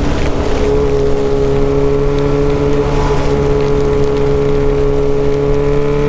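Yamaha XJ6's inline-four engine running through an unmuffled exhaust while riding: a brief break in the note at the very start, then held at steady revs.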